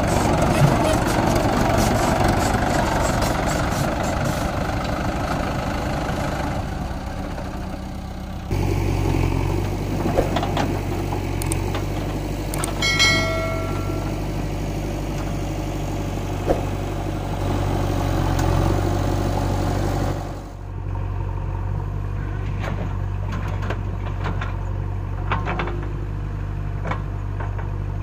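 Mahindra 585 DI tractor's four-cylinder diesel engine running, rougher and louder for the first eight seconds or so, then idling steadily with a low drone, with a backhoe loader working alongside. A brief high tone sounds about thirteen seconds in.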